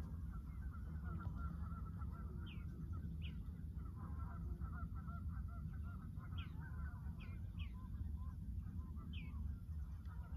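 Waterfowl calling over and over, with about six short higher bird chirps scattered through, over a steady low rumble.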